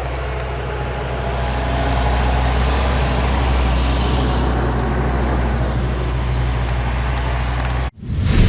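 Road traffic passing close by: a steady rumble with a low engine hum and a broad hiss, cutting off suddenly near the end.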